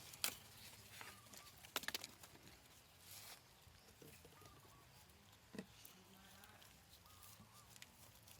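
Near silence, broken by a few faint clicks and taps and some soft, short high chirps.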